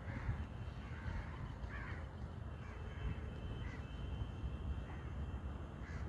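Crows cawing, short harsh calls about once a second, over a steady low rumble.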